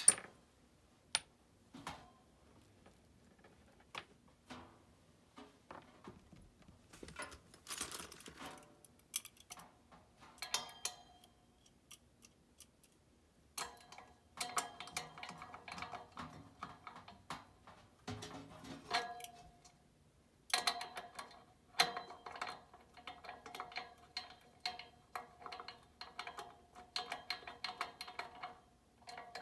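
Hand tools working on a furnace blower assembly. Scattered knocks give way to runs of rapid clicking and light metal clinks that ring in the sheet-metal blower housing.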